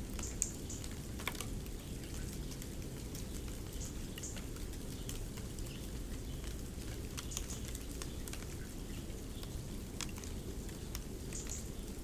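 Snow soundscape: a steady low rumble with sparse, faint crackles and ticks scattered over it.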